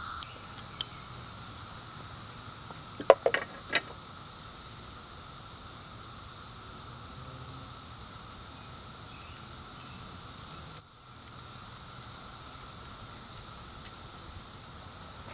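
A short cluster of sharp metallic clinks about three seconds in, from tools and terminal hardware being handled while a battery connector is disconnected. Under it, crickets chirr steadily.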